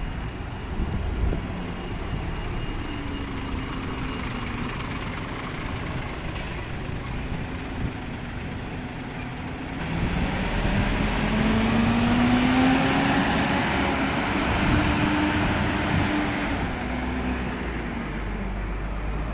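Diesel service bus engines running on the road as buses pass. About halfway through it gets louder and the engine note rises as a bus pulls away.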